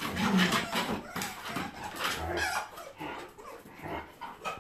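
Canids vocalizing during rough play: a run of short, uneven calls, loudest early and dying away toward the end.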